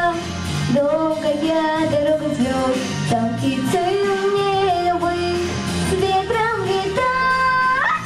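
A girl singing into a handheld microphone over instrumental accompaniment, holding long notes, with one that rises in pitch near the end.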